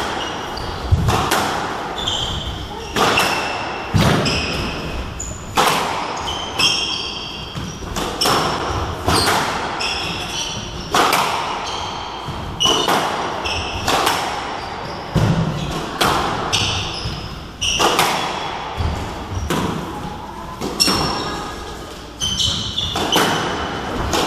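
Squash ball struck by rackets and hitting the court walls in a long rally, sharp echoing cracks about once a second, with short high squeaks of shoes on the wooden floor between shots.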